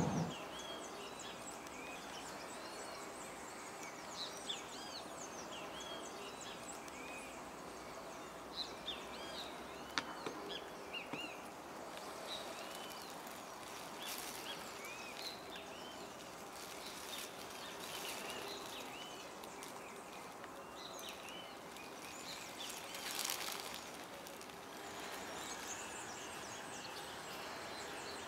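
Outdoor ambience with many small birds chirping: short, quick rising-and-falling calls that overlap throughout, over a faint steady background hiss. A brief swell of hiss comes about two-thirds of the way in.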